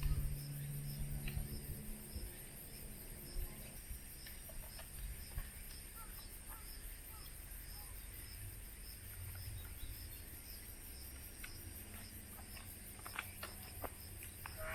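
Faint outdoor ambience: insects trilling steadily at a high pitch, with a pulsing call and scattered faint clicks over a low rumble.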